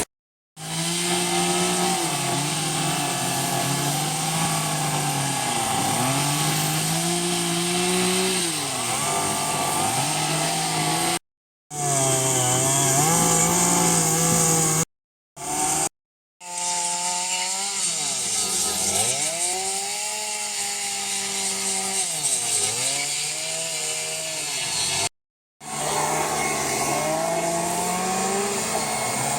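Chainsaw carving into redwood, its engine pitch repeatedly dropping and climbing back as the throttle is eased and opened during the cuts. The sound comes in several short stretches, each broken off suddenly by a brief gap.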